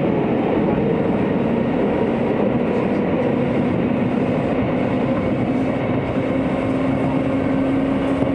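Hokuso Railway 9000 series commuter train running underground: a steady rumble of wheels on rail, with a motor whine that comes in about two seconds in and rises slowly in pitch as the train gathers speed out of the station.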